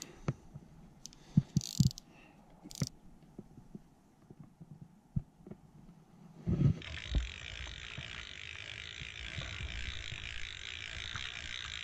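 Close handling noise of fly-fishing gear, with scattered soft knocks and clicks as a fly reel and jig are turned in the hands. After about six and a half seconds this gives way to a steady rush of flowing river water with a low rumble under it.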